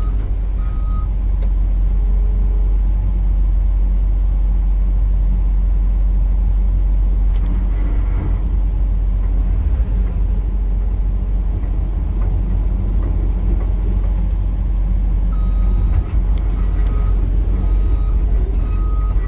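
Excavator's diesel engine running with a steady low drone while the machine travels, with a few knocks around the middle. Its travel alarm beeps at an even pace at the start, stops, and starts again near the end.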